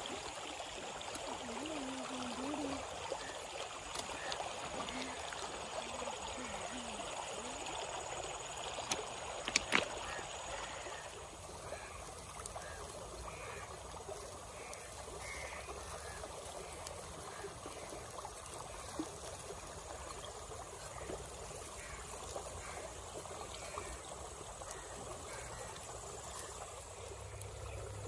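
Steady rush of flowing stream water, with one sharp click about ten seconds in. After about eleven seconds the water sound drops to a fainter outdoor background with scattered faint short chirps.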